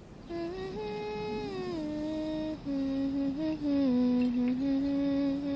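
A person humming a slow tune, holding each note and sliding from one to the next, over a low steady rumble.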